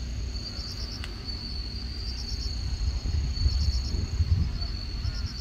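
Insects singing: a steady high buzz with bursts of rapid pulsed chirps every second or two, over a low rumble.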